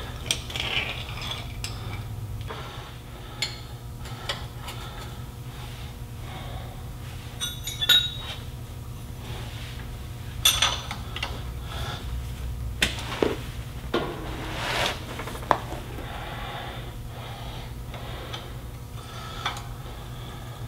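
Scattered metallic clinks, knocks and scrapes of a wrench and hand tools against metal, irregularly spaced, as the starter is being unbolted. A low steady hum runs underneath.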